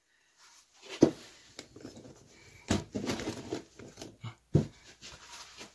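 Faint rustling and a few light knocks as a sawn-through paper towel roll is handled on a wooden workbench.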